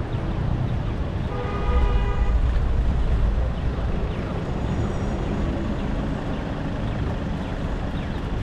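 City street traffic noise, with a motor vehicle passing close by: a low engine rumble that is loudest from about one and a half to three and a half seconds in.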